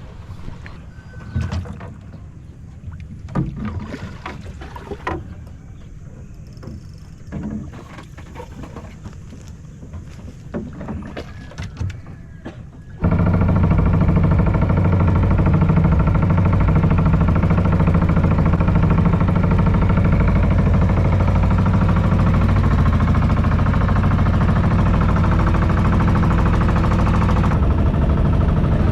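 Scattered light knocks over a low background aboard a small boat. About halfway through, a boat engine cuts in abruptly and runs loud and steady with a low hum to the end.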